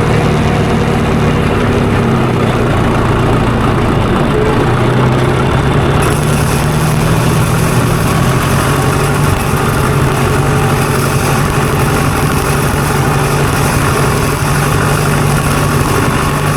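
Diesel tractor engine running steadily at a low, even note. The note lifts slightly about four seconds in, and a brighter hiss joins about six seconds in.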